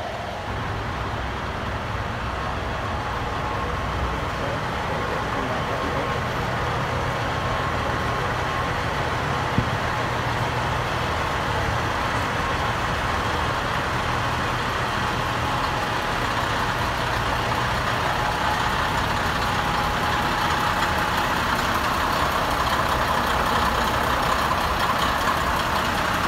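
Semi-truck engines running in a steady rumble that slowly grows louder.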